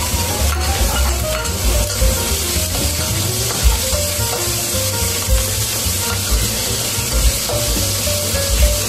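Sliced fish balls and minced meat sizzling in a carbon-steel wok, stirred and scraped with a metal spatula. A background tune plays along.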